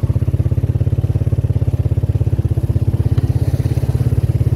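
A vehicle engine running steadily with a fast, even throb, heard from on board while travelling along a dirt road.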